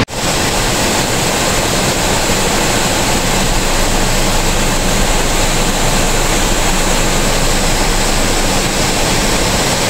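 Muddy floodwater rushing down a rocky stream cascade in a loud, steady torrent: a hill stream in spate after heavy rain.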